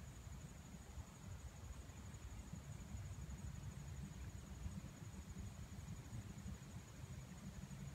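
An insect's steady, high-pitched trill running unbroken, over a low rumble.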